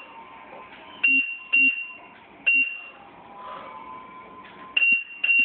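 Proliner 3D digitizer beeping as points are taken with its wire-tethered stylus along the cabinet edge: five short, high beeps at uneven intervals, two of them close together about a second in and two more near the end.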